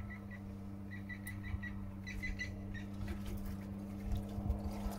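A bird calling in three quick runs of short, high, whistle-like notes, over a steady low hum. A few faint knocks come in the second half.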